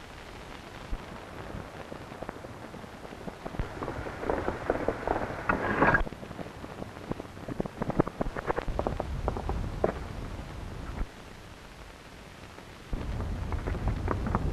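Crackling and snapping of someone moving through brush and dry twigs, in clusters about 4 and 8 seconds in, then from about 13 seconds a louder, lower rustling of a horse pushing through undergrowth. All of it sits over the steady hiss of a 1930s film soundtrack.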